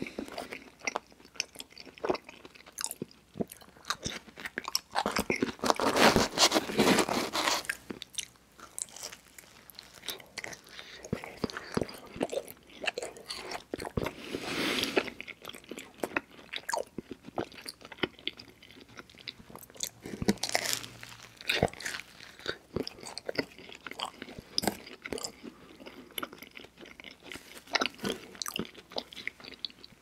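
Mouth sounds of a man biting and chewing cheese pizza: irregular chewing clicks and smacks throughout, loudest about six seconds in.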